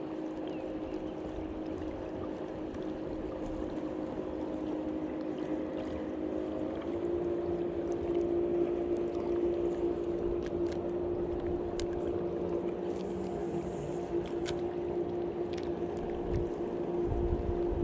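Steady hum of a boat motor out on the lake, its pitch stepping up about seven seconds in. A gust of wind rumbles on the microphone near the end.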